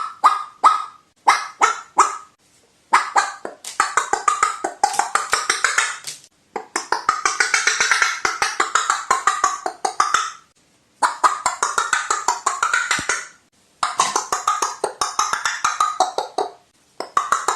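Crow making a knocking rattle call: a few separate sharp knocks, then runs of rapid clicking a few seconds long with short breaks between them.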